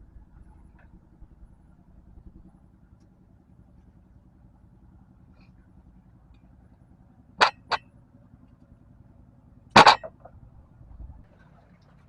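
Low, steady engine hum throughout, with two quick sharp clicks about seven and a half seconds in and a louder knock near the ten-second mark.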